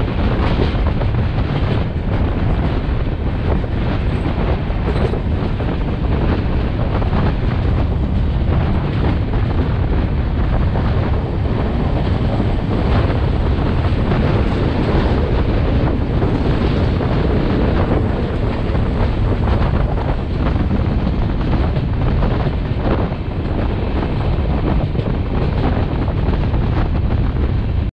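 Wind buffeting the microphone over the steady running noise of a passenger train in motion.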